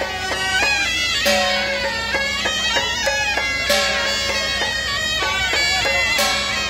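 Traditional procession music led by a double-reed shawm (suona) playing a melody over a steady held low note, with a loud crash about every two and a half seconds.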